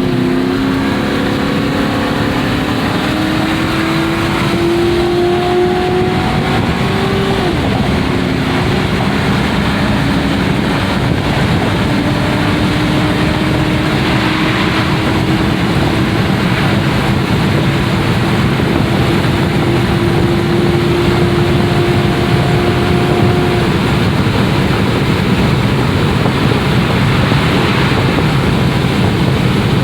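Ford Crown Victoria Police Interceptor's 4.6-litre V8 at wide-open throttle: the engine note climbs steadily, drops sharply at an upshift about seven seconds in, then climbs again more slowly through the next gear, over steady road and wind noise.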